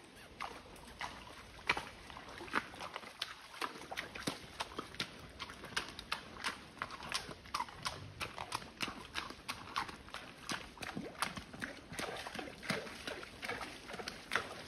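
Quarter Horse mare's hooves walking through a shallow rocky creek: irregular sharp knocks and crunches on wet stones and gravel, several steps a second.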